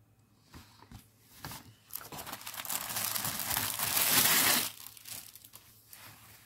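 Plastic packaging of a cross-stitch kit crinkling and rustling as it is handled: a few light crackles at first, then a dense crinkling that builds to its loudest and stops sharply about three-quarters of the way in.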